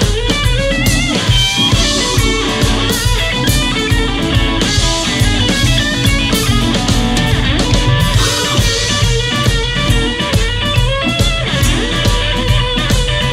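Live blues band playing an instrumental break: lead guitar soloing with bent, wavering notes over electric bass and a drum kit.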